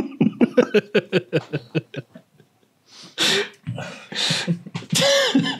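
A person laughing: a quick run of ha-ha pulses that fades out, then, after a short pause, three wheezy, gasping breaths.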